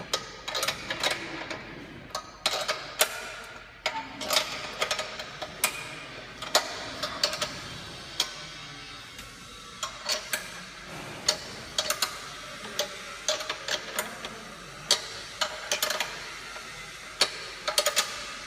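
Spanner tightening the nuts on the bolt clamps that hold a sheet-metal road sign to its steel post: irregular sharp metallic clicks and ticks, often in quick clusters of two or three.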